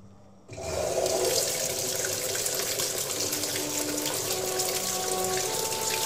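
Water starting to gush into a Hitachi BeatWash washing machine about half a second in, then running in steadily as the machine fills.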